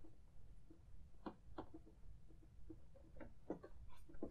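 A few faint, irregular plastic clicks and taps as a foam Nerf dart is fed into the cannon of a Hasbro Millennium Falcon toy.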